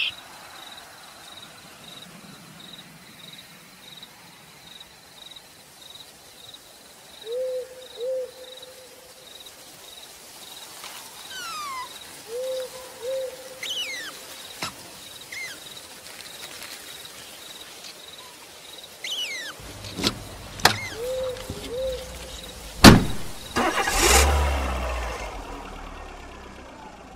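Quiet woodland sound-effect ambience with low two-note hooting calls three times and a few short chirping calls, then a sharp crack and a heavy thud with a low rumble a few seconds before the end.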